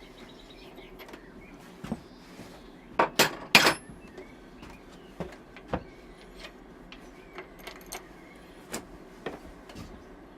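Tools and metal parts clinking and knocking during work on a dirt bike's front wheel: a cluster of sharp metallic clinks about three seconds in, then scattered lighter taps.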